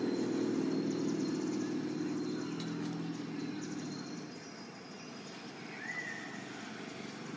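A low, steady engine hum that fades out about four seconds in, with one short high chirp near the end.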